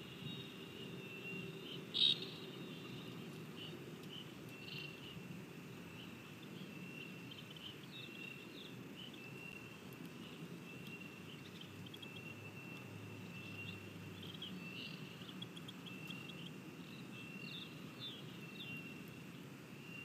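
Outdoor pond-side ambience: a steady high-pitched trilling chorus with many short bird chirps over it, and one sharp tap about two seconds in.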